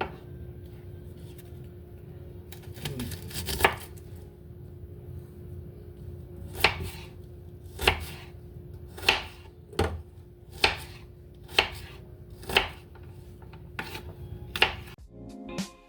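Kitchen knife chopping vegetables on a cutting board: a series of sharp, separate strikes, about one a second through the second half.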